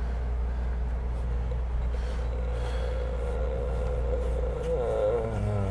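Steady low background rumble, with a voice starting to come in near the end.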